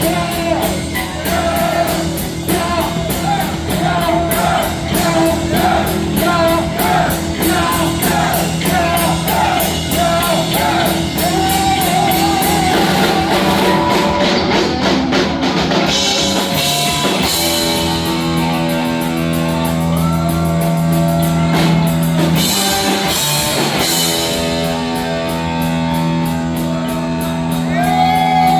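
A heavy metal band playing live, with singing over distorted electric guitar, bass and drums. About halfway through, the music moves into long held guitar chords.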